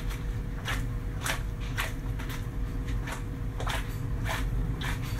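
A metal cooking pot of pinakbet shaken and tossed by hand to turn the vegetables over instead of stirring, the pot knocking in a regular rhythm, roughly every half second, over a steady low hum.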